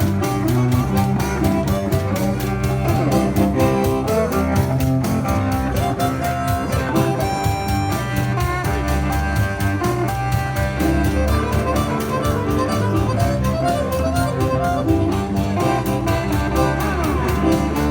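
Live street music played by buskers: an instrumental with sustained pitched notes over a steady, fast percussion beat, with no singing.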